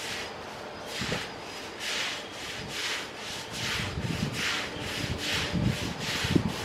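Steam locomotive chuffing sound effect at a slow, even beat, a hissing chuff a little under once a second, with some low thumps among them.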